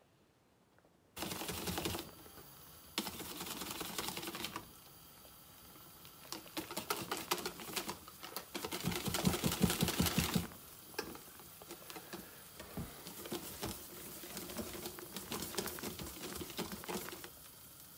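Wire whisk beating pancake batter in a stainless steel bowl: quick clicking and tapping of the wires against the metal and a wet slapping of the batter, starting about a second in and at its busiest a little past halfway.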